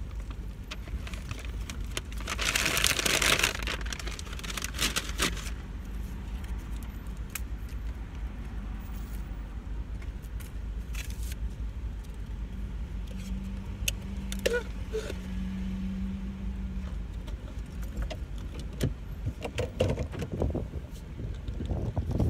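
Car idling with a steady low hum inside the cabin, while metal jingles and rustles loudest a few seconds in, with scattered light clicks afterwards.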